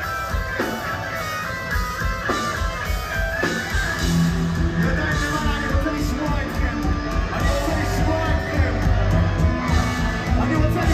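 Heavy metal band playing live through a club PA, heard from within the crowd: distorted electric guitars, bass and drums. A sparser guitar passage punctuated by a few hits gives way to the full band about four seconds in.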